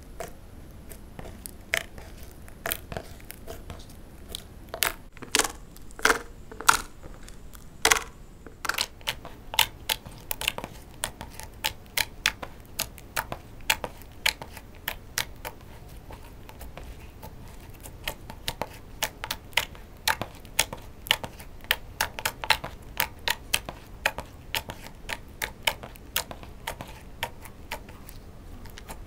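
Sticky slime being kneaded and folded by hand, giving irregular sharp clicks and pops as it is squeezed, stretched and pressed. The clicks come thickest in the second half.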